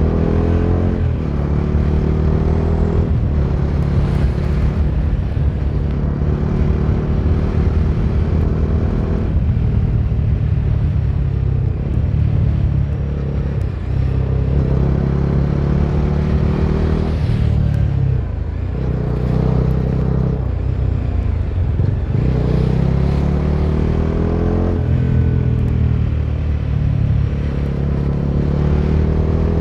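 Bajaj Dominar 250's single-cylinder engine running on the move, its pitch climbing as it accelerates and dropping again many times as the rider shifts gears or eases off.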